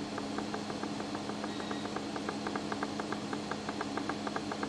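Fan of a homemade infrared BGA rework station humming steadily, with a rapid, even run of short clicks, about seven a second, that starts just after the beginning and stops near the end.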